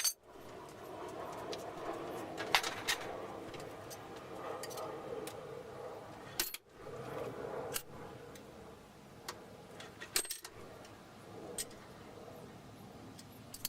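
Scattered small metallic clicks and taps from hand work on metal parts, over a steady background noise, with sudden breaks where the sound cuts out for an instant.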